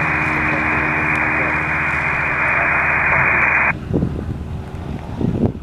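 Static hiss of an open airband radio transmission, narrow and radio-thin, cutting off abruptly nearly four seconds in. After it, wind buffets the microphone in gusts over a faint low steady hum.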